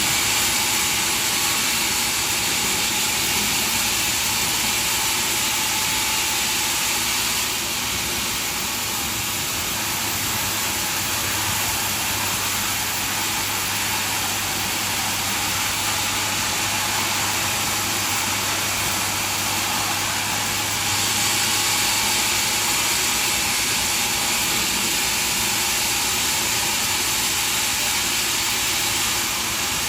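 Sawmill machinery running steadily: a constant mechanical hum under a dense hiss, with slight shifts in level about a quarter and two-thirds of the way through.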